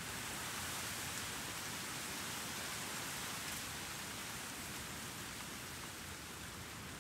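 Outdoor breeze ambience: a steady, even hiss that swells slightly in the first second and eases toward the end, with very light city noise beneath.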